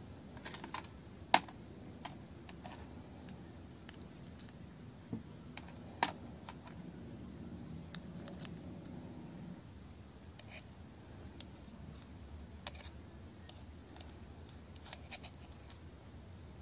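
Small, scattered clicks and light metallic taps as the planetary gears and a small tool are handled in the plastic gearbox housing of a Bosch GSR 12-2 cordless drill. The sharpest click comes about a second in, with small clusters of ticks later on.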